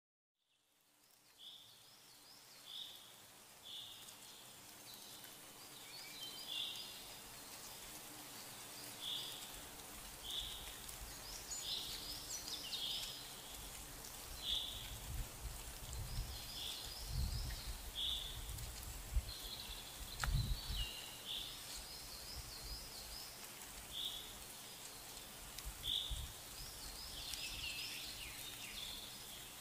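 Outdoor ambience with a bird calling over and over, a short note repeated about every second or two, and quicker twittering phrases from other birds in between. From about halfway in, low rumbles on the microphone come and go.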